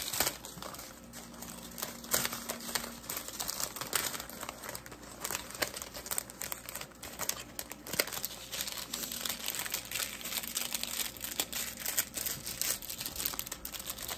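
Clear plastic packets of diamond-painting rhinestones crinkling as they are handled, folded and tucked into a plastic zip bag, with irregular crackles throughout.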